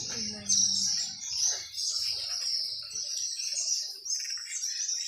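Many small birds chirping continuously, with rapid, overlapping high twitters.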